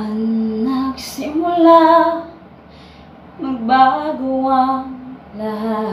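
A woman singing solo with no accompaniment, holding long steady notes in short phrases separated by brief pauses for breath.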